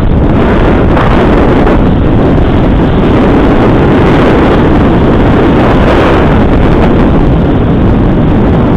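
Loud, steady wind rush buffeting the camera's microphone during a fast ski run downhill, drowning out other sound.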